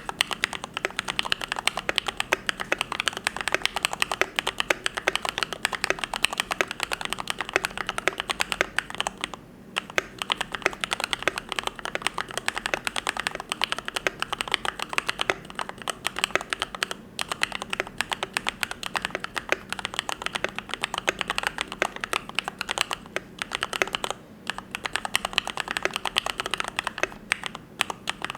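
Continuous fast typing on a YMD75 V3 custom mechanical keyboard with lubed Gateron Yellow linear switches: a dense run of keystroke clacks, broken by a few short pauses.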